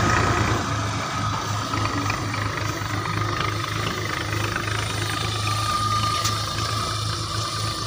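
Geomembrane seam welding machine, heated to 340 °C, running along the overlap of 1 mm liner sheets: a steady low hum with a thin high whine.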